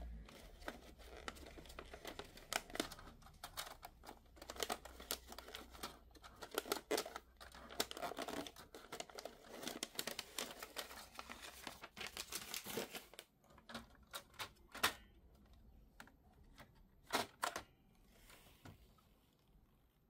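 Faint paper rustling and crinkling as a jammed sheet is eased out of the rear of a Canon PIXMA TR4750i inkjet printer, mixed with many small plastic clicks and knocks from handling the printer. The handling thins out to a few separate clicks over the last several seconds.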